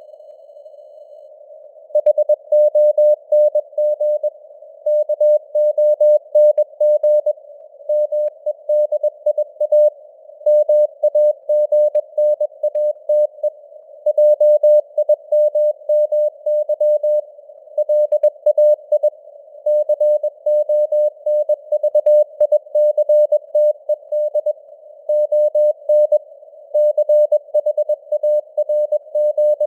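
Morse code (CW) sent at 21 words per minute: a single steady tone keyed on and off in dots and dashes, over a faint hiss of simulated radio noise. For about the first two seconds only the hiss is heard, then the keying runs on.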